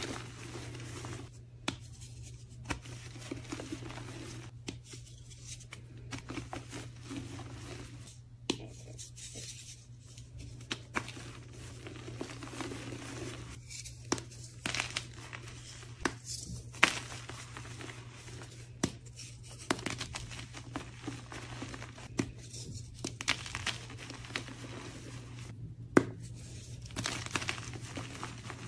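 Hands crushing and crumbling blocks of reformed gym chalk: irregular dry crunches and crackles as the blocks break into powder, with a few sharper snaps now and then.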